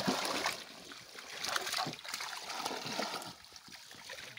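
Fish thrashing in a net bag held in shallow water, in irregular bursts of splashing.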